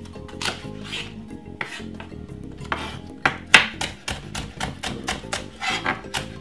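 Kitchen knife chopping a spring onion on a wooden cutting board: a run of sharp chops on the board, slow at first and coming quicker from about halfway through.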